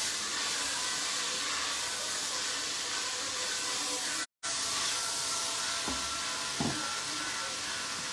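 Diced vegetables frying in olive oil in an enamelled cast-iron pot, a steady sizzle as they are stirred with a wooden spoon. The sound cuts out for a moment about halfway, and two short knocks come a little after.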